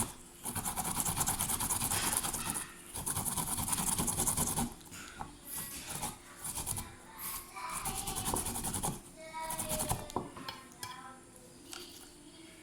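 Ginger being grated by hand: fast rasping scrapes in two long runs over the first five seconds, then quieter, scattered scraping.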